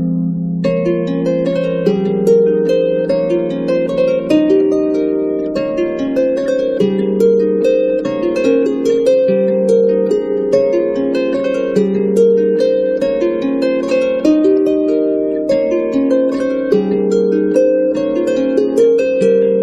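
Background music: harp playing a flowing run of plucked notes.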